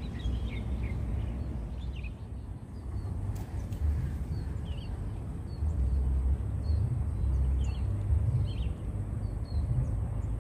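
Outdoor ambience: a loud, uneven low rumble, with small birds giving short high chirps again and again.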